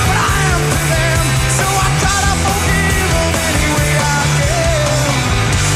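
Loud rock music with a steady, heavy bass line and wavering melodic lines above it.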